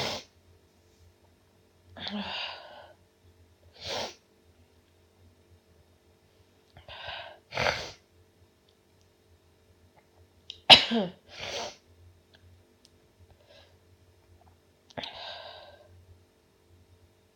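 A person sneezing over and over, several separate sneezes a few seconds apart, the loudest one just past the middle.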